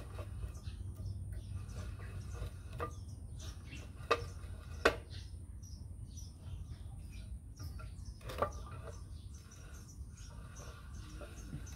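Rusty bench vise being worked by hand: its sliding steel T-handle clinks against the screw, four sharp metallic clinks with a short ring, the loudest two about four and five seconds in.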